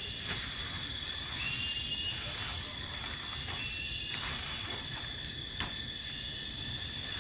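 Steady high-pitched drone of a jungle insect chorus, a continuous shrill tone with a few faint knocks underneath.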